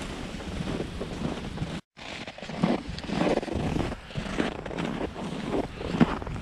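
Wind buffeting a GoPro's microphone: a steady rush of wind noise that cuts out briefly about two seconds in, then comes back in uneven gusts.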